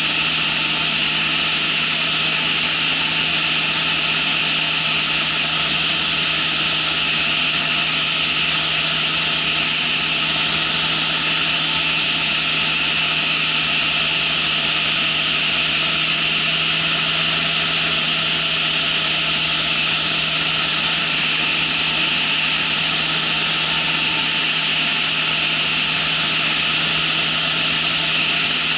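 Ultralight trike's engine and propeller running steadily in flight: a constant hum under a loud, even hiss.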